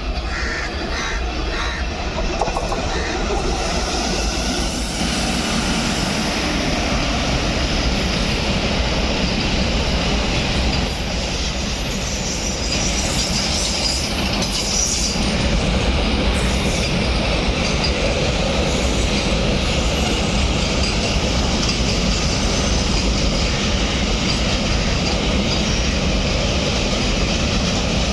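Container freight train's wagons rolling past with a steady, loud rumble and rail clatter. Thin high wheel squeals come and go in the middle stretch.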